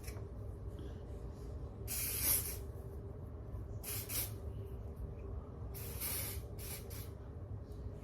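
Aerosol spray can, used as lace-melting spray on a wig's lace frontal, sprayed in four short hissing bursts about two seconds apart.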